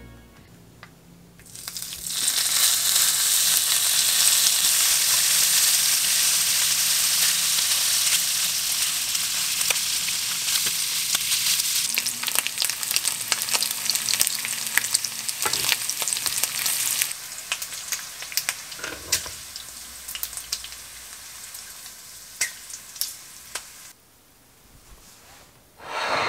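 Slices of duck sizzling in their own rendered fat in a frying pan, with metal tongs clicking against the pan as the slices are turned. The sizzling starts about two seconds in and dies down about two-thirds of the way through.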